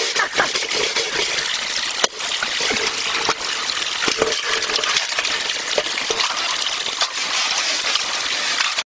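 Water gushing steadily, with scattered knocks and scrapes of a metal bowl being scrubbed by a capuchin monkey.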